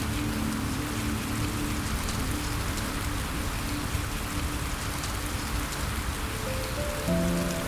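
Steady rain falling, with faint drop ticks, under soft sustained music notes that fade out in the first second or two; a new chord comes in near the end.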